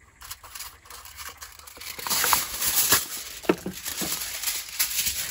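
Aluminium foil being pulled off the roll and crinkled as a sheet is torn off and handled: a few faint rustles at first, then dense crackling from about two seconds in.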